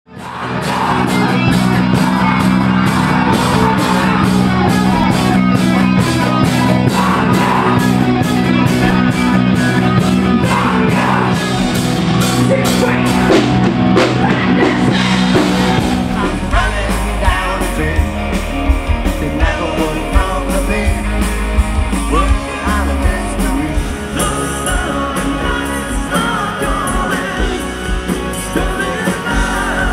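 Rock music with a singer, electric guitars and a drum kit. It comes in at once and plays steadily. About halfway through it changes to a different song or section with a heavier, deeper bass.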